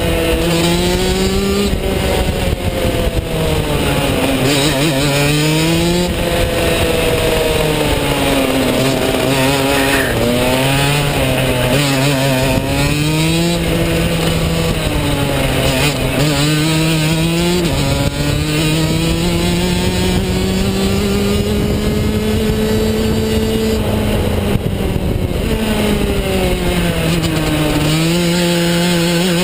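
Rotax DD2 shifter kart's single-cylinder two-stroke engine under hard use around a lap, its pitch climbing as it accelerates and dropping as it slows for corners, over and over, with one long climb in the middle and a few sudden steps in pitch.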